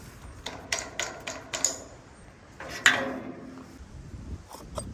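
A series of sharp clicks and knocks from metal parts being worked by hand, about eight in all, spaced irregularly, the loudest about three seconds in.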